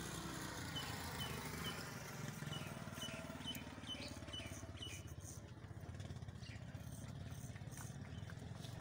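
A motor engine running steadily in the background. A short, high chirp repeats about twice a second during the first few seconds.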